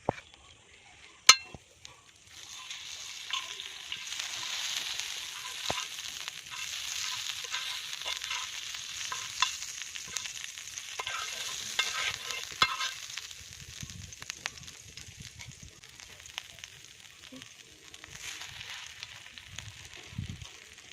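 Bread sizzling as it roasts in hot fat, with scattered crackles through the hiss. A single sharp clack comes about a second in, just before the sizzle starts, and the sizzle thins out past the middle.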